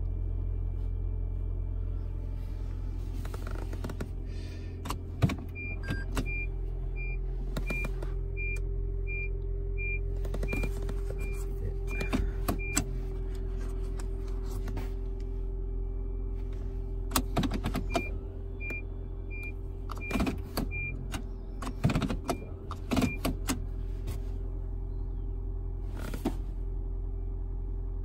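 Steady low hum inside a car's cabin, with a car's chime beeping at about two beeps a second in two runs of several seconds each, and scattered clicks and knocks of the gear shifter being handled.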